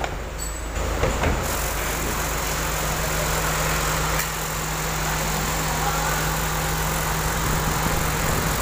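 Chevrolet Aveo engine idling with the AC switched on, its original AC compressor making a rough, steady growl ("ngorok"). The noise comes from the compressor's worn internals, not from its pulley bearing. A couple of knocks come about a second in.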